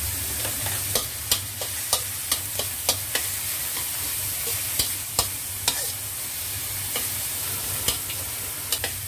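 Onion and garlic sizzling in hot oil in a pan, with irregular sharp clicks and scrapes of a utensil stirring them against the pan.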